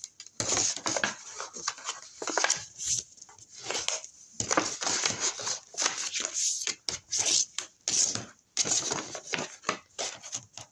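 Cardstock being folded by hand and its creases pressed down: a run of irregular rustling and scraping strokes of stiff paper.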